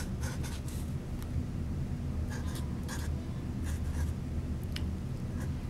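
A marker writing on a paper cup: a series of short, faint scratching strokes, with a low steady hum underneath.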